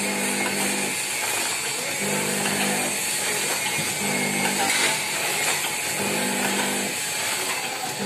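Automatic coffee sachet packing machine running: a steady mechanical whir with a low hum that switches between two pitches about once a second, in an even repeating cycle.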